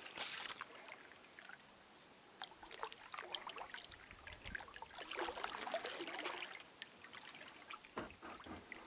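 Kayak being paddled: water splashing and trickling off the paddle, with a few sharp clicks.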